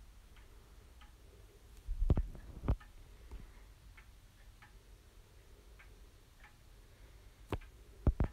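1950s longcase (grandfather) clock ticking steadily, its pendulum movement giving faint, evenly spaced ticks. A few louder knocks stand out, two about two seconds in and two near the end.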